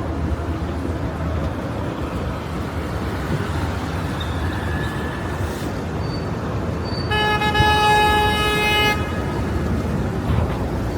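Steady city street traffic, with a car horn sounding one long blast of about two seconds, some seven seconds in.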